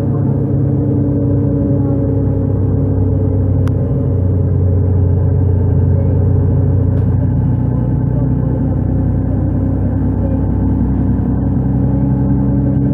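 Mercedes-Benz Citaro (O530) city bus with a Voith automatic gearbox, heard from inside the cabin while driving: the diesel engine and drivetrain run steadily under way over road noise, a little louder in the middle of the stretch.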